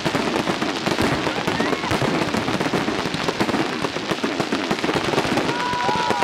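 Fireworks display with many shells going off at once: a dense, unbroken run of rapid pops and crackles from overlapping bursts.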